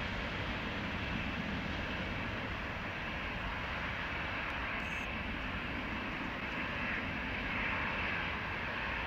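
Twin GE90 jet engines of a Boeing 777-300ER running steadily while the airliner rolls slowly on the runway.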